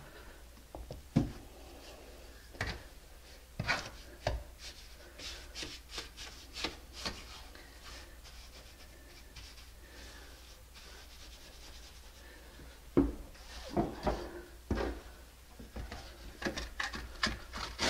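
Steel trowel scraping and patting wet mortar spread on a plywood subfloor: irregular scrapes and taps, coming faster near the end.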